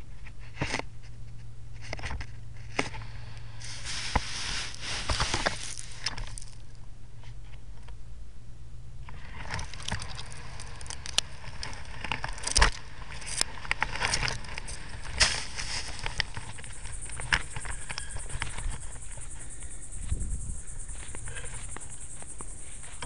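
A homemade Lego camera rig scraping and rustling against sand and roots, with scattered clicks and knocks as it is pushed along. In the second half a steady high-pitched buzz sets in.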